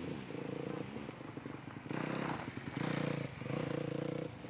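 Dirt bike engine running as it is ridden through a slow practice corner, the engine note wavering with the throttle and breaking off briefly twice.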